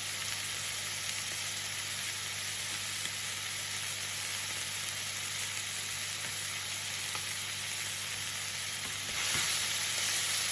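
Marinated fillet steaks sizzling as they sear in a hot pan with no oil. The steady sizzle grows louder about nine seconds in.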